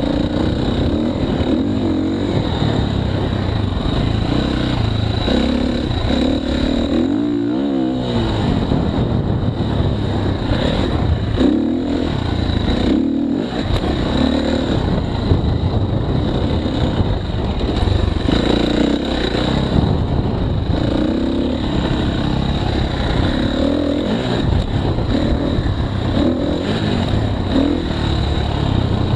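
KTM 350 XC-F dirt bike's single-cylinder four-stroke engine running under way on a dirt trail, its revs rising and falling with the throttle. There is a quick rev up and back down about seven seconds in.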